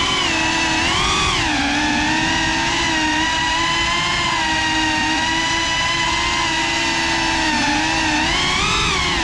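GEPRC Cinelog35 cinewhoop's brushless motors and propellers whining in flight. The whine holds a steady pitch, then rises and falls with throttle about a second in and again near the end.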